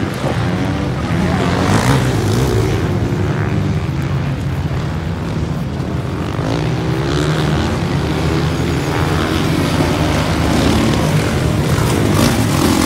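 Several supermoto racing motorcycles' engines revving around the dirt section of the track, overlapping engine notes rising and falling as the riders accelerate and back off.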